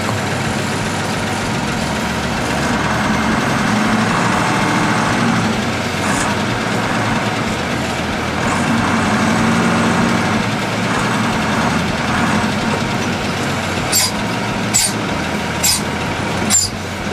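Mercedes-Benz Unimog 1300 truck's six-cylinder diesel engine heard from inside the cab as the truck pulls away and drives off, the engine note rising and falling with throttle and gear changes. Near the end there are four or five sharp knocks.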